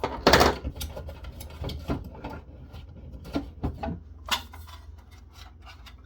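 Metal forceps clicking and scraping on small nuts and the metal housing, with scattered knocks of hardware being handled; the loudest scrape comes just after the start, and the clicks thin out after about four seconds.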